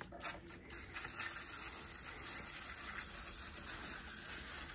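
Steady hiss of liquid coil cleaner sprayed in a stream onto a ductless mini-split's blower wheel to saturate it, with a few light clicks as it starts.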